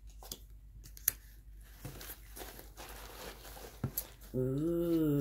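Black shredded-paper box filler rustling and crackling as hands dig through it, with a few sharp crackles.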